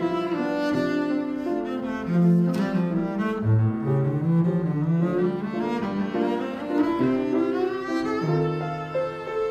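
Double bass played with the bow in a singing solo line, its sustained notes moving every half second to a second, with piano accompaniment underneath.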